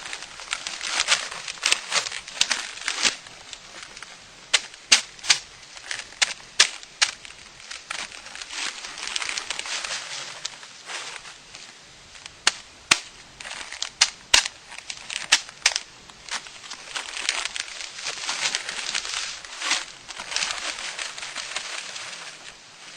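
Refractory sand being worked together with clay by hand: gritty scraping and rustling with many irregular sharp clicks.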